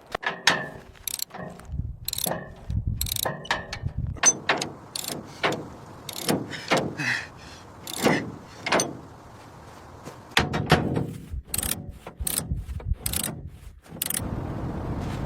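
Irregular mechanical clicks, clunks and ratcheting of hardware being worked by hand, with a short lull about two-thirds of the way through.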